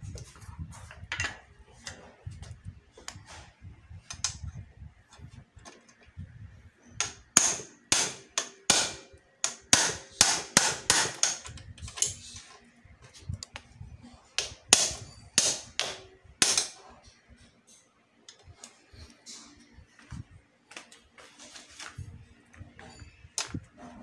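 Hammer blows, metal on metal, banging on a motorcycle's steering head bearing cup to drive it out of the frame's head tube. A long run of sharp strikes, lighter at first, heaviest and quickest through the middle stretch, then lighter taps near the end.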